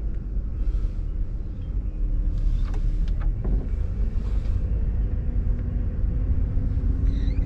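Car driving: a steady low rumble of engine and road noise, with a faint engine hum that rises slightly in pitch over the last few seconds.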